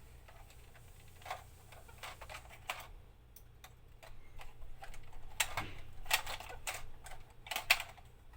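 Hard plastic toy parts clicking and knocking together as the pieces of a toy dog are handled and fitted. The clicks are irregular, sparse at first, then come thicker and louder over the last few seconds.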